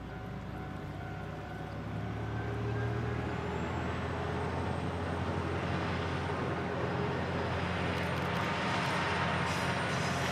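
Diesel railcar passing on the Isumi Railway: a steady low engine drone mixed with the running noise of wheels on rail, growing louder over the first few seconds as the car draws level.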